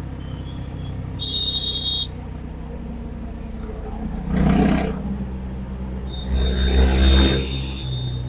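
Honda H'ness CB350 single-cylinder engine running steadily under way, with a steady low rumble and a shift in engine note near the end. A high, steady whistle-like tone sounds briefly about a second in and again from about six seconds. Two loud rushing swells of noise come at about four and a half and about seven seconds.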